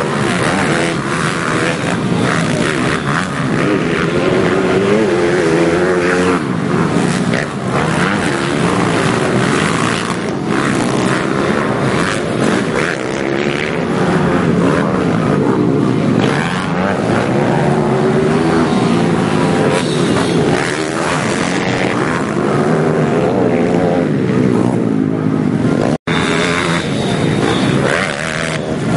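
Pit bike engines revving as the bikes ride a dirt track, the pitch rising and falling over and over with throttle and gear changes, more than one bike at once. The sound cuts out for an instant near the end.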